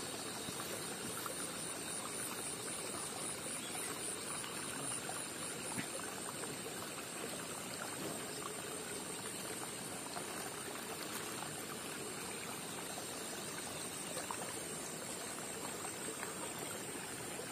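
Soft water trickling and sloshing as a plastic bag of baby fish is dipped and emptied into a pond, with a steady high hiss throughout.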